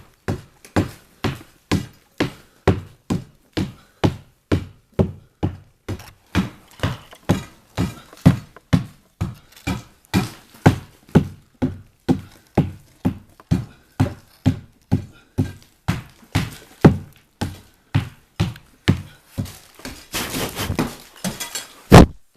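Steady, rhythmic blows of a metal tool chipping into a brick wall, about two a second. Near the end comes a short rattling, scraping spell, then one loud blow.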